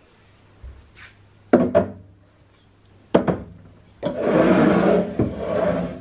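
Glass storage jars with wooden lids handled and set on a shelf: sharp knocks about one and a half seconds and three seconds in, then a steady scraping rush lasting nearly two seconds.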